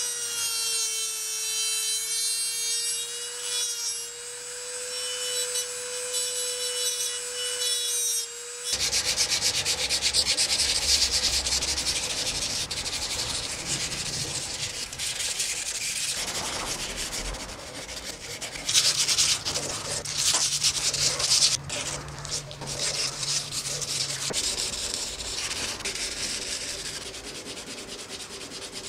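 Small hand-held rotary tool whining steadily as it spins a small abrasive disc against a steel hammer head. About nine seconds in it stops, and rough back-and-forth hand sanding of the steel takes over for the rest of the time.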